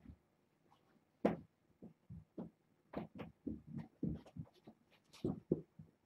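Irregular soft thumps and knocks, coming thick and fast through the middle, from kittens running, leaping and pouncing on carpet and cat furniture.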